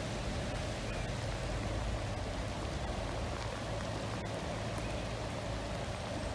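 Steady rushing of a swollen, flooding river, with rain falling.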